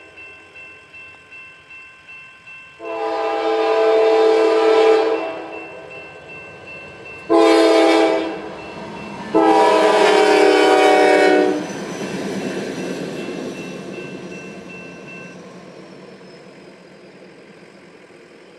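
Railroad crossing bell dinging about two and a half times a second, then a freight locomotive's multi-chime air horn sounds three blasts, long, short, long. After the horn, the train's wheels rumble past and slowly fade.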